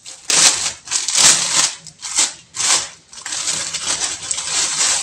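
Clear plastic wrapper crinkling loudly in a series of bursts as it is pulled off a fabric cosmetic bag.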